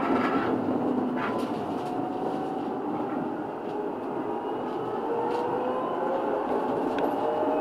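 Munich R2.2 low-floor tram running on its rails, its motor whine slowly rising in pitch as it accelerates away from a stop.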